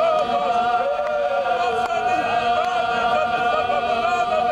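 A group of men chanting together. One note is held steadily while other voices rise and fall around it.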